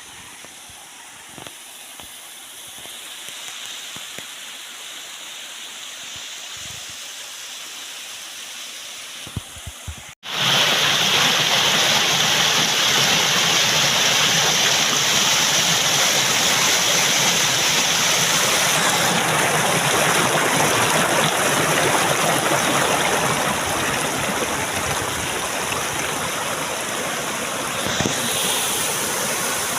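Steady rushing water of a waterfall, faint at first with a few light knocks. About ten seconds in it cuts abruptly to a much louder, close, constant roar of falling water.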